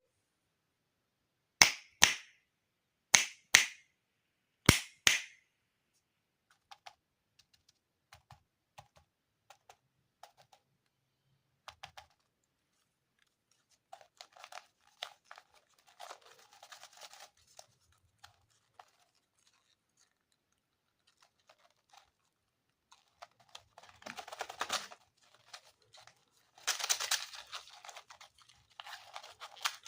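Three pairs of sharp taps or clicks in the first five seconds, then scattered light ticks and stretches of crinkling and rustling, growing louder near the end: candy packaging being handled and unwrapped.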